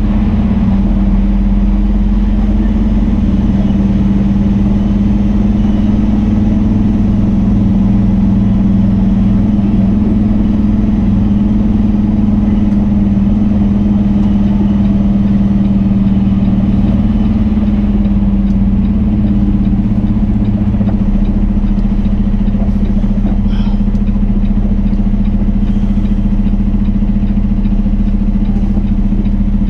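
Diesel engine of a Peterbilt 389 semi truck running steadily as the truck drives along, a constant low drone heard from inside the cab.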